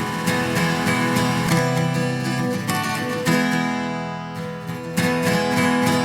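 Strummed acoustic guitar music played through a multichannel delay plugin, its delay repeats layered over the chords. Fresh chords are struck every second or two.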